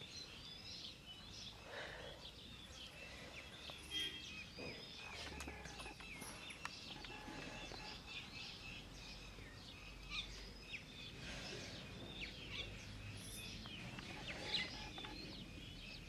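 Small birds chirping and twittering, many short high notes overlapping, over faint low background noise, with a couple of brief clicks.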